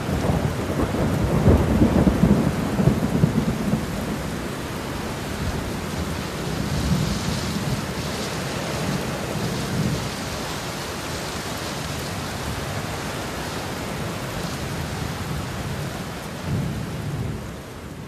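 A steady rushing noise with deep rumbles, loudest in the first few seconds, swelling again briefly twice later and fading near the end.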